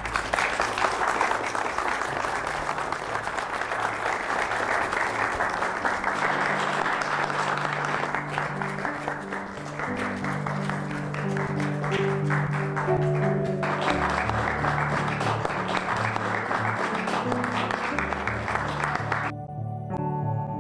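A roomful of guests applauding, with music playing under the clapping. The applause cuts off suddenly near the end, leaving only the music.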